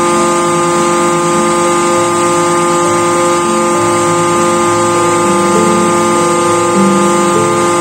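Hydraulic test bench running: an electric motor driving a hydraulic pump, giving a steady loud whine with several tones over a hiss, and lower tones that shift every half second or so.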